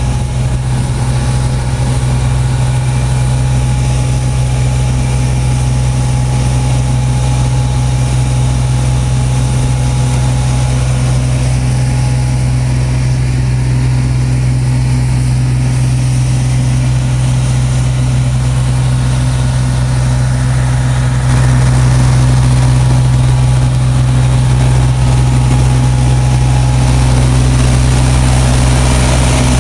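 Truck engine idling steadily, a loud low drone with no change in rhythm, getting slightly louder about two-thirds of the way through.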